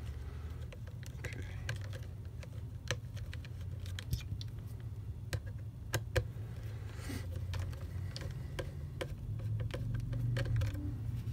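Scattered clicks and taps of the hard plastic housing parts of a Dyson V8 cordless vacuum being pressed and lined up by hand, with a hand screwdriver turning a screw into the housing, over a low steady hum.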